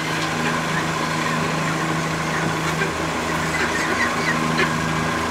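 Steady mechanical hum of a running motor, like an engine idling, holding an even level throughout.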